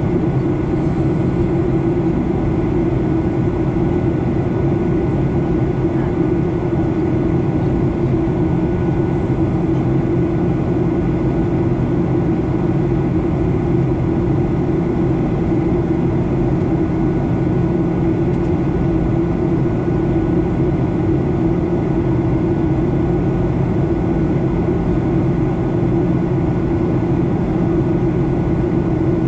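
Steady cabin noise of a Boeing 737-800 in flight, heard inside the cabin: the even hum of its CFM56-7B turbofan engines mixed with rushing airflow, unchanging throughout.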